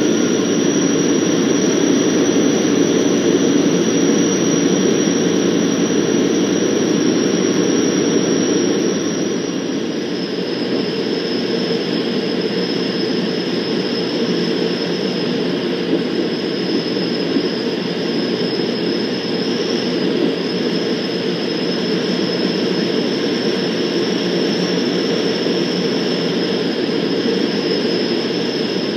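Van's RV-12's Rotax 912 four-cylinder engine and two-blade propeller running steadily in flight, heard inside the cockpit. About ten seconds in, the drone drops slightly in pitch and level as power is brought back for the approach to the runway.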